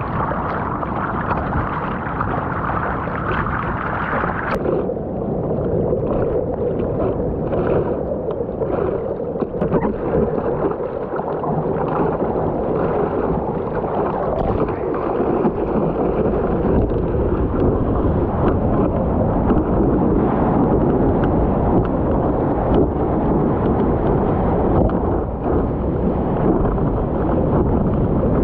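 Sea water splashing and rushing against a surfboard close to the board's nose while a surfer paddles through small waves. It grows louder and deeper in the second half as the board picks up speed on a wave.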